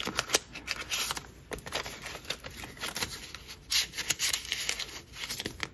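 Rustling and crinkling of clear vinyl pocket sleeves and a folded paper bill as cash is slipped into a small savings-challenge booklet, with light irregular clicks and taps from handling.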